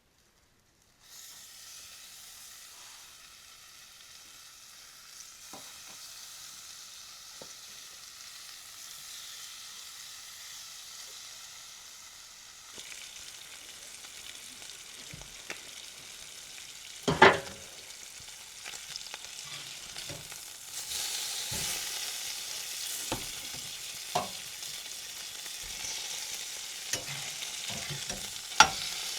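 Food sizzling in a hot frying pan, starting about a second in and growing louder later on, with occasional sharp knocks of a utensil or pan, one loud one about two-thirds of the way through.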